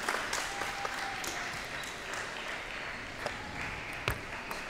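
Scattered applause in a large hall after a table tennis point, with a few sharp clicks of a table tennis ball.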